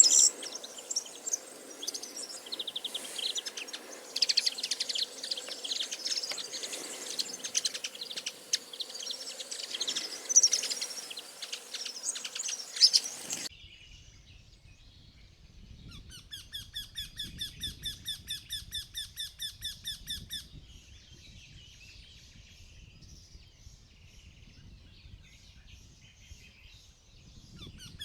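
Many birds chirping and singing together in a dense chorus; about halfway through it cuts off abruptly and a high, squeaky call repeated about four times a second comes in runs over a quiet background.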